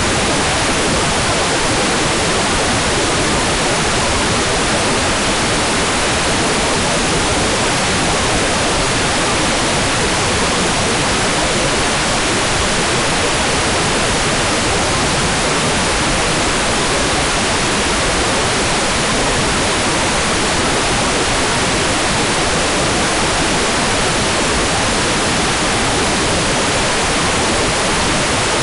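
Hair dryer running continuously, a steady, even rushing noise with no change in level or pitch, used as white noise for sleep.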